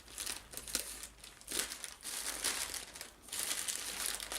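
Plastic parcel packaging crinkling and tearing in irregular bursts as it is pulled open by hand.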